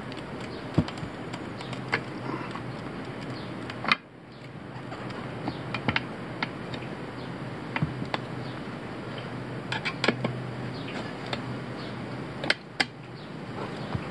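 Steel tire levers and a screwdriver clinking and scraping against a steel wheel rim as a tire bead is levered over the rim by hand: irregular sharp metallic clicks, the loudest about four seconds in and again near the end.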